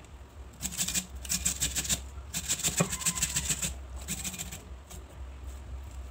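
Food being grated on a flat handheld metal grater: quick rasping strokes in three runs, stopping about four and a half seconds in.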